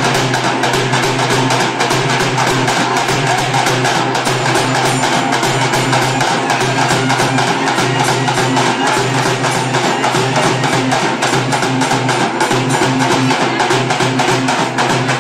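Frame drums beaten hard in a fast, dense, unbroken rhythm, the sharp strokes running close together.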